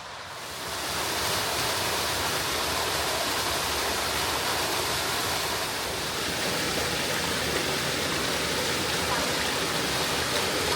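Rushing water, a steady even rush that swells up about a second in and then holds.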